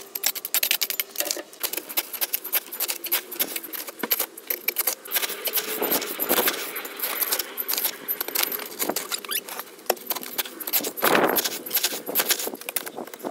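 Shovel blade scraping and crunching through gravel and soil, with a constant rattle of small stones clicking against each other and the blade. A louder scrape comes about eleven seconds in.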